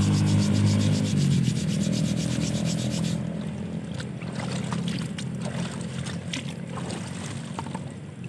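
A brush scrubbing a wet wooden root in quick, even rubbing strokes for about three seconds, then stopping, followed by scattered small splashes and drips of water. A steady low hum runs underneath.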